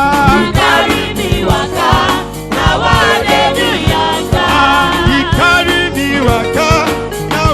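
Church choir singing a Yoruba gospel song with live band accompaniment: voices over a steady drum beat and bass.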